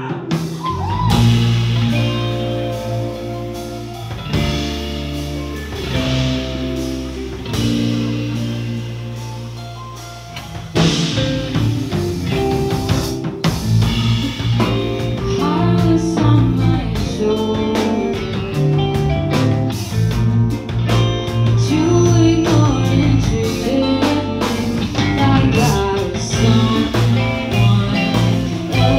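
Live rock band playing. Held guitar chords ring and slowly fade for the first ten seconds or so, then the full band with drums comes in louder about eleven seconds in, and a woman sings over it.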